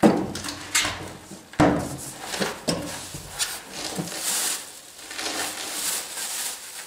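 Cardboard box and plastic packaging being handled: a few knocks and scrapes in the first two seconds as the box and wrapped saw are shifted, then plastic crinkling from about four seconds in.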